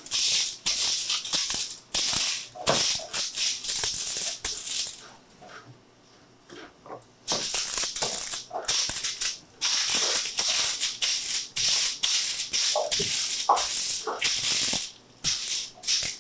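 Aluminium foil on a baking sheet crinkling and rustling as a buttered paper towel is rubbed over it to grease it. It comes in scratchy bursts, with a pause of about two seconds around the middle.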